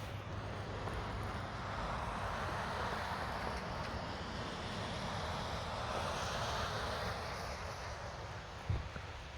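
A vehicle passing by: a broad rush of tyre and engine noise that swells and then fades over several seconds, above a steady low rumble. A short low thump near the end.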